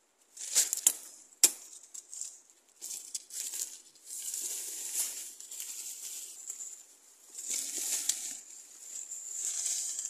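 Footsteps crunching through dry leaf litter and brushing past undergrowth in uneven spells, with a few sharp cracks about a second in.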